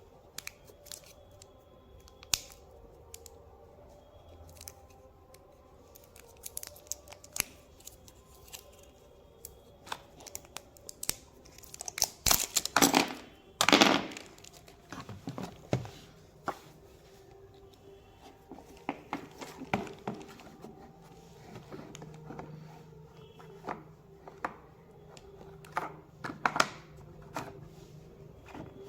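Packaging and small plastic parts being handled: scattered clicks and rustles, with two loud tearing sounds about twelve and fourteen seconds in.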